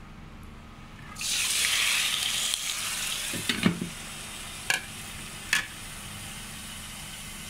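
Marinated chicken wings tipped into hot oil in a wok: a loud sizzle starts suddenly about a second in, then settles to a steady frying hiss. A few short knocks follow in the middle as the glass lid is set on the pan.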